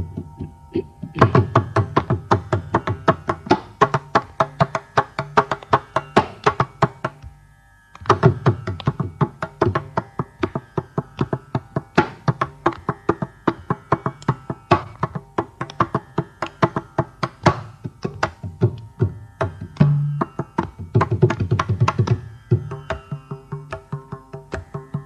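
Mridangam played at a fast pace, a dense run of strokes mixing ringing treble strokes with deep bass strokes; the playing breaks off briefly about seven and a half seconds in, then resumes.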